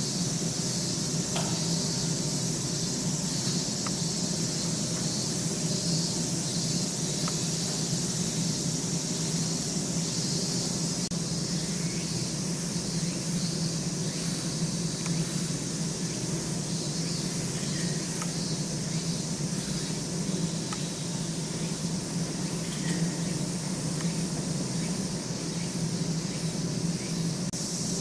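Steady low hum with an even hiss above it, a constant background drone, with a few faint clicks scattered through.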